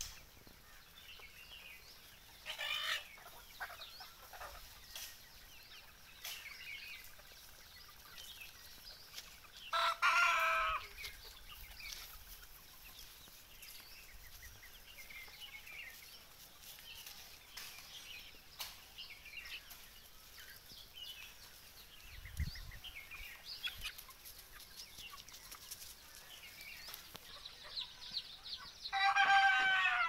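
Free-range desi chickens clucking and calling, with a rooster crowing loudly about ten seconds in and again near the end. Dense high peeping of young chicks comes in near the end.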